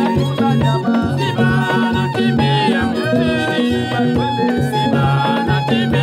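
Lively music with a steady, repeating bass beat and a gliding melody line above it.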